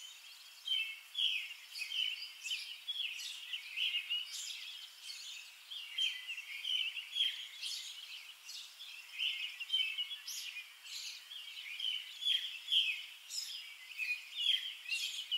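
A chorus of small birds chirping and twittering without a break, many short overlapping calls that rise and fall in loudness.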